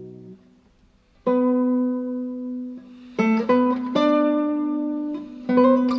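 Background music: plucked guitar notes that start sharply and ring out, resuming after a short gap about a second in, with clusters of notes later.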